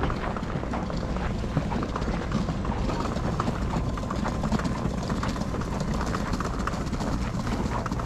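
Footsteps on thin snow over paving, a continuous run of crunching steps, with a low wind rumble on the microphone.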